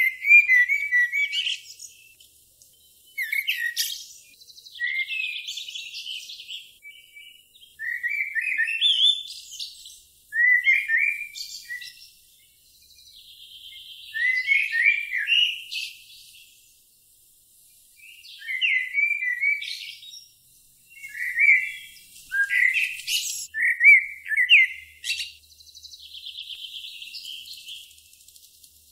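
A songbird singing short phrases of quick chirps and whistles, each a second or two long, repeated every few seconds with brief pauses between.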